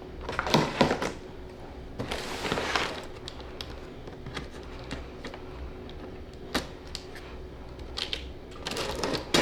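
Handling noises from flat-pack furniture assembly: scattered taps and clicks, a brief scrape about two seconds in, and a quick cluster of clicks near the end.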